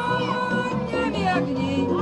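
Loud background music with steady held notes and a moving melody.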